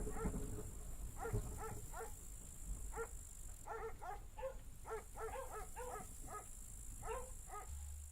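Faint series of short, pitched animal calls, two or three a second, starting about a second in.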